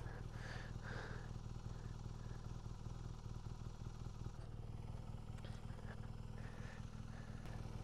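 BMW R1200GS flat-twin boxer engine idling steadily, a faint, even low hum.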